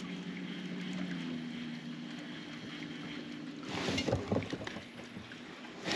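Fishing reel being cranked steadily on a crankbait retrieve, then a cluster of clicks, knocks and rustling about two-thirds of the way in as the rod is swept back against a sudden heavy weight: a hook set on a big fish that at first felt like a snag on a rock.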